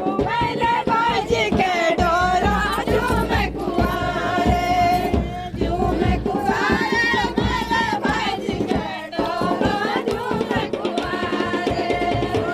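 Traditional Pahadi folk singing, with wavering held notes from voices over a steady beat of drums.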